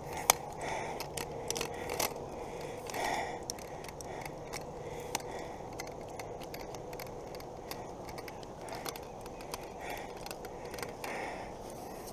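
Light clicks, knocks and scrapes of a metal camera tripod being handled and its legs spread and set down.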